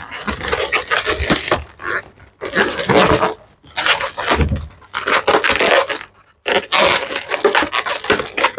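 Inflated latex modelling balloons (260 and 350 sizes) squeaking and rubbing against each other as they are twisted and joined by hand, in irregular bursts with short pauses.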